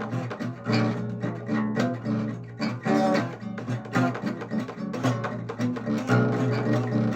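Guitar music: plucked and strummed notes, played continuously.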